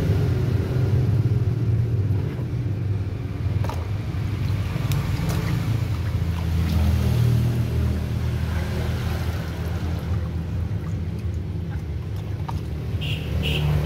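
A steady low rumble throughout, with a few short knocks and light splashing as a plucked duck carcass is handled and washed by hand in a plastic basin of water.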